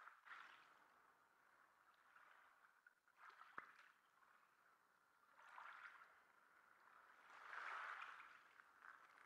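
Near silence: a faint hiss that swells and fades a few times, with one small click about three and a half seconds in.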